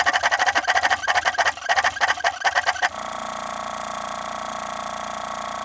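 Air suspension compressor of a 2014 Cadillac Escalade ESV running: first the old, worn compressor, cracked and noisy, with a loud, rapid pulsing chatter. About three seconds in it cuts to the new replacement compressor, running with a quieter, steady, even hum.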